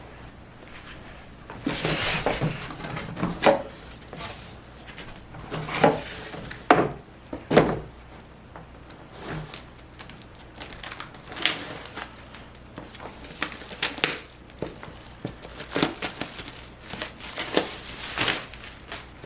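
Crinkling and rustling of packaging being handled in irregular bursts, most likely the LP's sleeves and wrapping.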